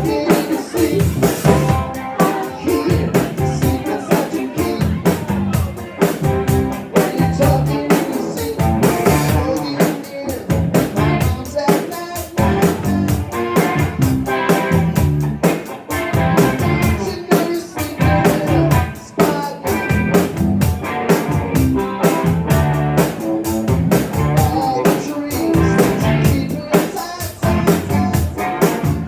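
Live rock band playing: a drum kit keeping a steady beat under electric guitar and bass.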